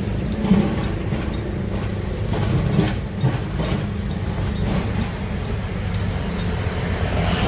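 Heavy earthmoving machine's diesel engine running steadily, with a few short metallic knocks, the loudest about half a second in and near the end.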